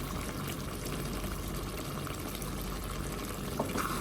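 Aloo shimla mirch (potato and capsicum curry) cooking in a pan on the stove, making a steady sizzling hiss. A couple of light knocks come near the end.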